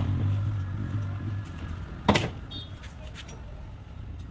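Two sharp thumps about two seconds apart, with a few lighter clicks after the second. They are typical of a car's body panels or a door being knocked or shut. A low steady hum sounds under them for the first second and a half.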